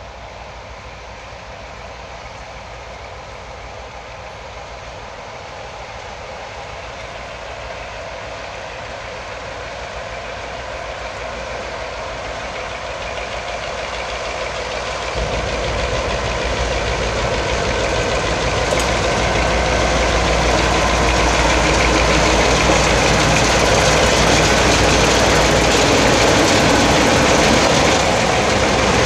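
Diesel freight locomotives running under power as the train pulls out. The engine noise grows steadily louder as they approach and is loudest over the last ten seconds as they pass close by.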